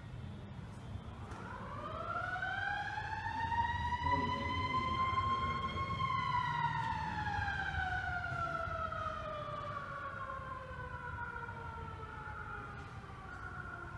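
A siren wailing: its pitch rises over about four seconds, then falls slowly for the rest of the time, over a low steady rumble.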